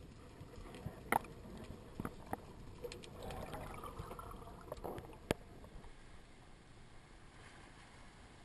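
Underwater sound heard by a diving camera: a low, muffled wash of water with scattered sharp clicks and knocks, and a louder watery rush from about three to five seconds in.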